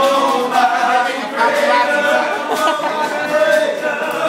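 A group of men singing a worship song together to a strummed acoustic guitar.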